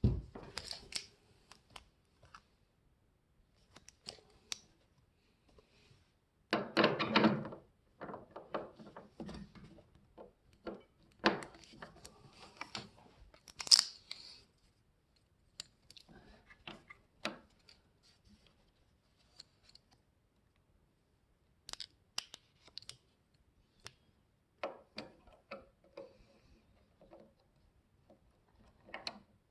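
Scattered clicks, knocks and short rustling as things are handled, with a longer rustle about seven seconds in.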